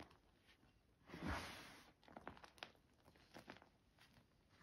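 Crunchy reformed gym chalk crumbled in the hand: a soft crunching rush about a second in as a handful breaks and pours, followed by small crackles as crumbs and powder fall.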